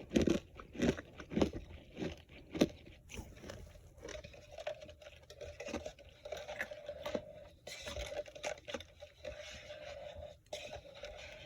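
Crisp, loud crunches, about five in the first three seconds, then softer scraping and crumbling crunches over a faint steady hum.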